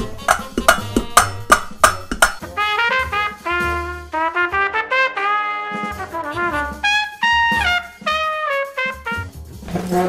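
Trumpet playing a melody of notes that step up and down, some held for a second or more. For about the first two seconds, before the trumpet comes in, there is a string of sharp clicks, about three a second.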